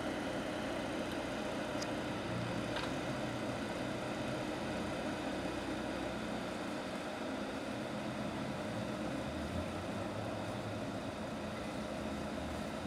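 A steady mechanical hum of a running motor, unchanging in level throughout, with a couple of faint ticks.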